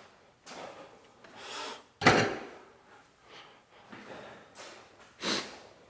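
Wooden boards being handled and shifted on a workbench: a sharp knock about two seconds in, with short rubbing and scraping sounds about once a second around it, and a louder one near the end.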